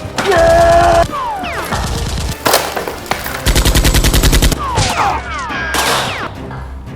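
Gunfire sound effects laid over a mock gunfight: a single sharp shot, then a rapid machine-gun-like burst lasting about a second, with falling whistling glides around them. A loud, held, pitched sound opens the sequence.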